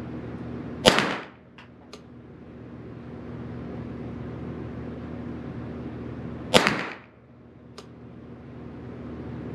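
Derya TM22 .22 LR semi-automatic rifle firing Sellier & Bellot rounds: two single shots about six seconds apart, each ringing briefly in the small indoor range. Faint ticks follow each shot, over a steady low hum.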